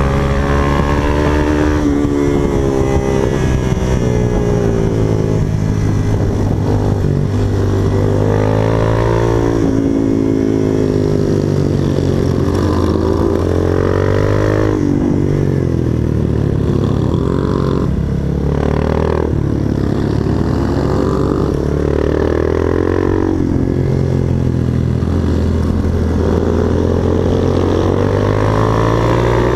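Supermoto motorcycle engine heard onboard while lapping a track, its pitch repeatedly climbing under acceleration and dropping back as the rider shifts and brakes for corners.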